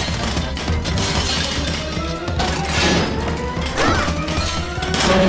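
Suits of metal armour toppling and crashing onto the floor in a run of cartoon crash and shatter effects, with several separate impacts. Background music plays under the crashes.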